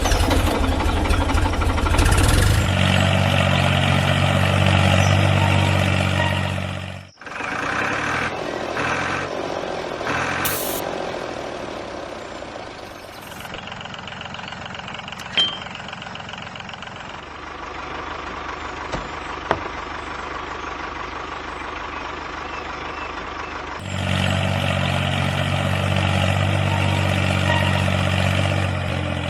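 Truck engine running steadily. It cuts off sharply about seven seconds in, runs quieter through the middle, and grows louder again near the end.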